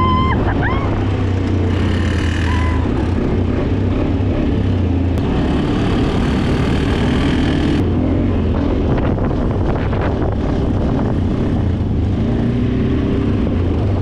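ATV (quad bike) engine running steadily while riding, a loud low drone whose pitch shifts a little as the throttle changes.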